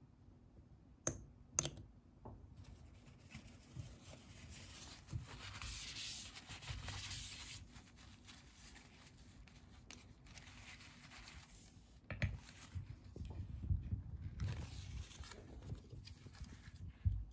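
Faint handling of a small glass alcohol lamp as its cotton wick is worked through the brass wick holder: two sharp clicks, then a scratchy rustle of cotton and metal, and light knocks near the end as the lamp is set down on the wooden base.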